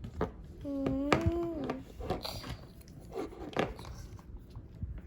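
Small plastic toy pieces clicking and knocking as they are handled and fitted together, several separate clicks. A person's voice sounds once, drawn out, about a second in.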